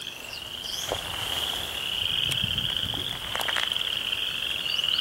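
A steady, high-pitched chorus of frogs trilling, with a few short bird whistles and scattered faint clicks.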